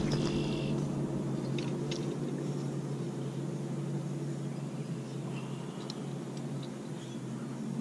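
A steady low engine hum, with a few short, faint, high chirps over it.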